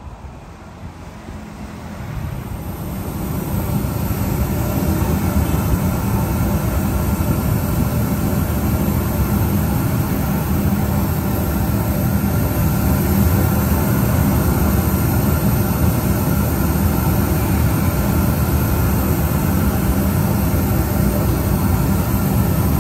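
Steady rushing test noise played through a passive 15-inch PA speaker while its frequency response is measured. It rises over the first few seconds, then holds even, with the top end clearly present.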